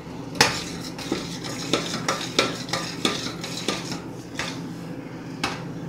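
A spoon stirring cooking chocolate syrup in a stainless steel saucepan, scraping and clinking irregularly against the pot's sides and bottom.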